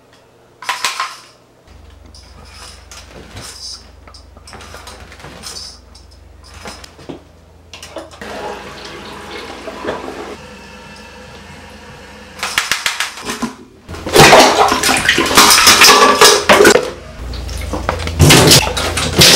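Rushing water from a toilet flush, with the clatter of a metal reach grabber knocking against the porcelain bowl and tub. There are scattered clicks at first, a rush of water in the middle, and a louder, busier stretch of water and clatter in the last few seconds.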